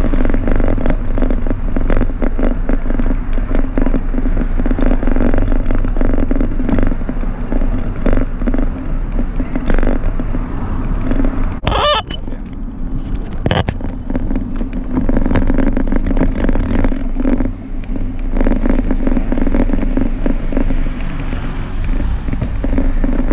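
Bicycle ride heard from a camera carried on the bike: a steady rush of noise with frequent rattling knocks and jolts as the wheels roll over rough paving. About twelve seconds in, a brief high squeal.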